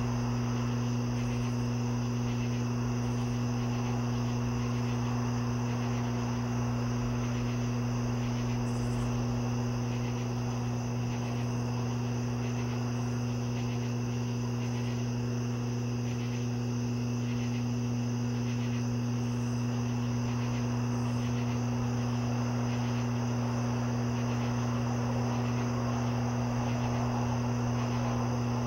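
Crickets chirping steadily over a constant low hum.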